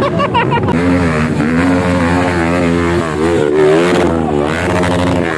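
Dirt bike engine revving hard, its pitch wavering up and down as the throttle is worked on a hill climb.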